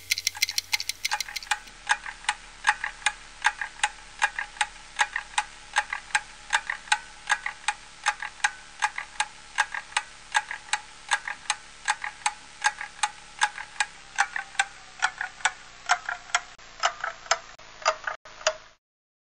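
Wall clock ticking steadily, about three ticks a second, then cutting off suddenly near the end.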